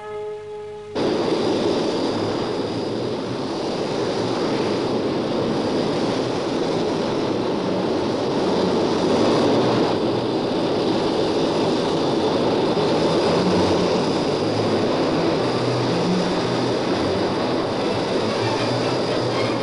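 MiG-21 jet fighter's turbojet engine running, a steady dense rushing noise with a thin high whine over it, starting suddenly about a second in.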